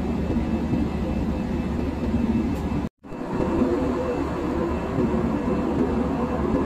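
Steady engine and air noise inside a jet airliner's passenger cabin in flight, a constant rumble with a low hum. It cuts out completely for a split second about three seconds in, then carries on.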